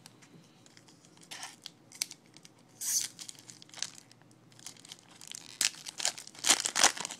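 Foil wrapper of a Bowman baseball card pack crinkling and being torn open by hand. It comes in short bursts about a second and a half in and three seconds in, then a longer, louder run of tearing and crinkling near the end.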